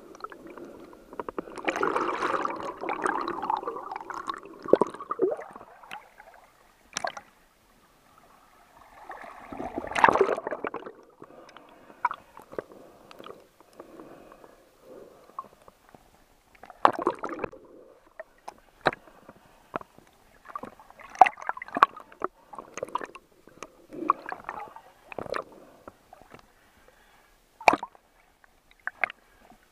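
Water noise picked up by an action camera in a waterproof housing, in and under a river's surface. There are irregular stretches of sloshing water, the longest in the first few seconds and another around ten seconds in, with scattered sharp clicks and knocks between them.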